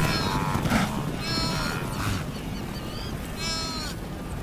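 An animal bleating: several short cries, each falling in pitch at the end, over a dense low rumble.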